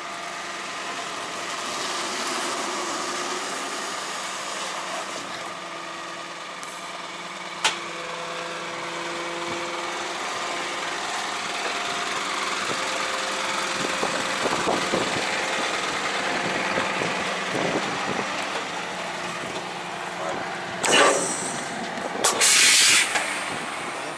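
Diesel engine of a Ponsse forestry forwarder running as the machine crawls slowly down off a lowboy trailer, with a single sharp click about a third of the way in. Two loud bursts of hiss come near the end.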